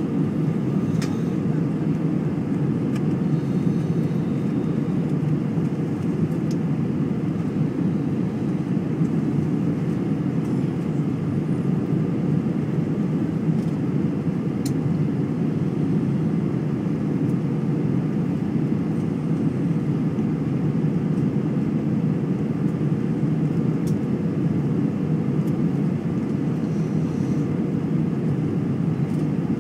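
Steady cabin noise inside an Airbus A320-family airliner descending to land: an even, low rumble of the jet engines and rushing airflow, unchanging throughout.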